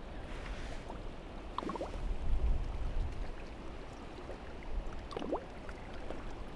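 Strong wind gusting on the microphone as a low rumble, with choppy reservoir water lapping close by. There are two brief faint high sounds, one about a second and a half in and one about five seconds in.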